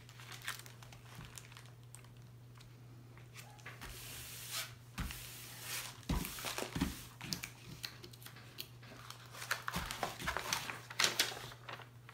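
Plastic release film on a diamond painting canvas crinkling and rustling as hands lift it, smooth it and press it back down onto the glued canvas, with irregular crackles that grow busier partway through.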